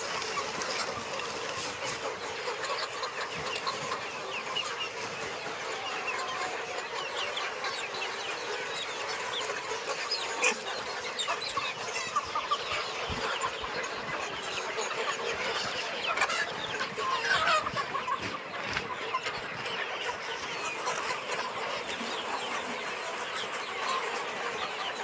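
A large flock of Sonali desi crossbreed chickens clucking and calling together, many short overlapping calls in a steady chatter with a few louder squawks now and then.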